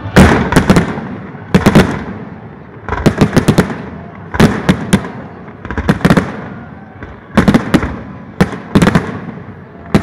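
Aerial firework shells bursting in groups of several sharp bangs about every second and a half, each group trailing off in a rumbling echo.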